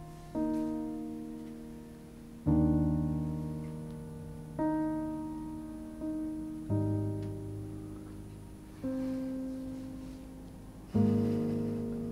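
Background piano music: slow chords, each struck and left to fade, with a new one every two seconds or so.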